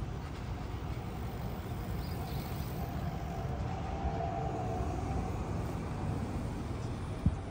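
Street traffic: a steady low rumble with a vehicle passing by, its faint whine swelling and fading in the middle, and a single sharp click near the end.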